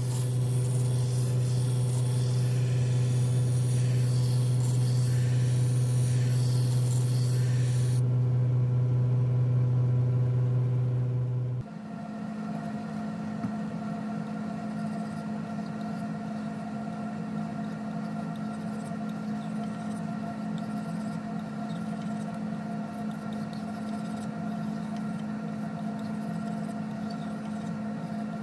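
An electric belt grinder running with a steady motor hum while a steel knife blade is ground against its abrasive belt, a hissing grind that stops about eight seconds in. At about twelve seconds the sound changes suddenly to a different steady machine hum, under light scraping of the blade on a whetstone.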